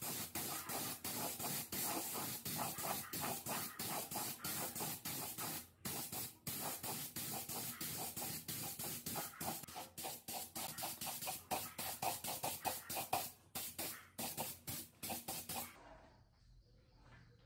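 Gravity-feed air spray gun hissing as it sprays paint, in quick stop-start bursts with many short breaks, stopping about a second before the end.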